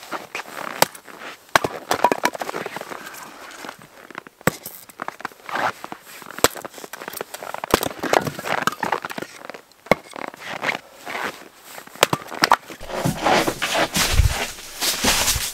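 Axe splitting firewood: sharp chopping strikes every second or two, with wood cracking and clattering between them. Near the end comes a denser run of crackling and low knocks.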